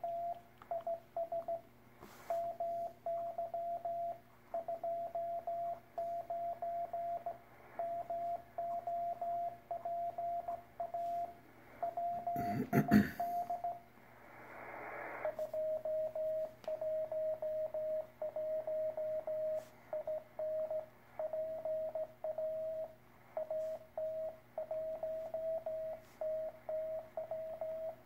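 Morse code (CW) coming through a shortwave ham radio receiver: one steady mid-pitched tone keyed on and off in dots and dashes. Just after the middle a loud crackle and a brief hiss break in, and the code then resumes a little lower in pitch.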